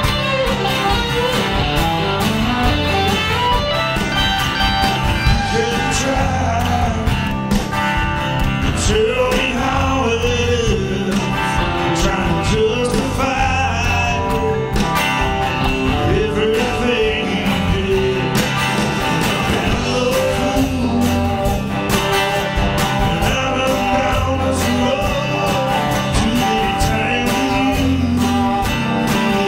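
Live band playing a song: acoustic and electric guitars, keyboard and drums, with a man singing lead that comes in about nine seconds in.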